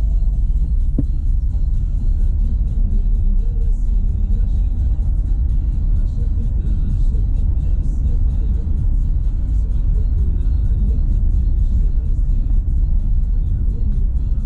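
Renault Sandero Stepway 2 driving on a dirt road: a steady low rumble of tyres and suspension with frequent small knocks and rattles. The knocking is the suspension sound on the right side that the owner is trying to trace.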